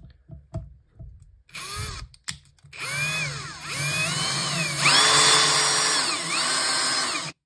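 Parkside Performance PABSP 20-Li C2 cordless drill driver with a brushless motor driving a screw, after a few light handling clicks. The motor whine speeds up and slows down twice with the trigger, then runs faster for about two and a half seconds and stops abruptly near the end.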